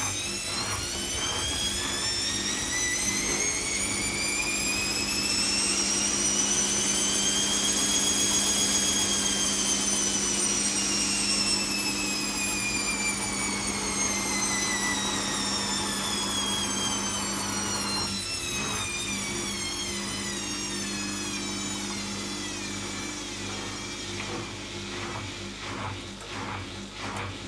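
Zanussi ZKN7120L washing machine's motor whining as the drum spins up, rising smoothly to a peak about eight seconds in and winding back down over the next ten seconds, over a steady low hum. Near the end the whine is gone and the machine gives off uneven, rhythmic pulses.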